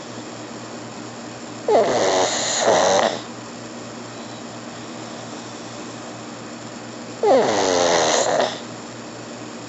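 Pug snoring: two loud snores about five and a half seconds apart, each opening with a falling pitch, the first in two parts. A steady low hum runs underneath.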